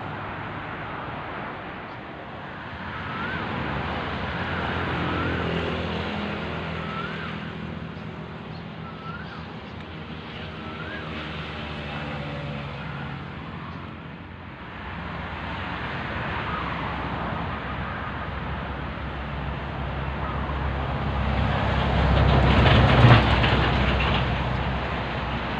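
Low rumble of distant motor traffic, swelling twice and loudest about 23 seconds in, with a string of short rising chirps in the first half.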